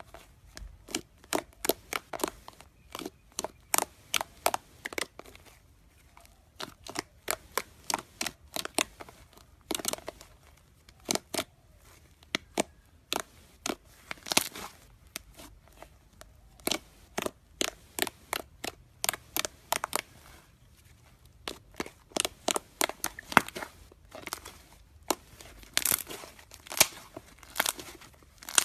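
Slime being squeezed and worked by hand, giving many sharp, wet clicks and pops in quick irregular clusters.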